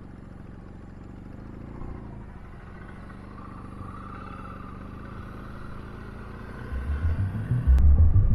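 Motorcycle running steadily at low speed along a dirt road, a low engine drone. About seven seconds in, a loud, pulsing low beat of background music comes in.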